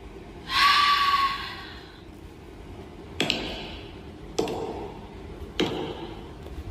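A short pitched tone about half a second in, fading out over about a second and a half, then four slow, evenly spaced footsteps, each a sharp knock about a second apart.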